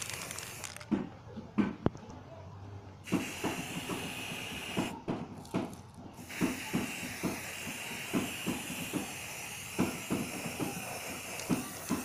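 Aerosol spray-paint can hissing as paint is sprayed onto a plastic box. The spray starts about three seconds in, breaks off briefly near the middle and then runs steadily again, with light knocks along the way.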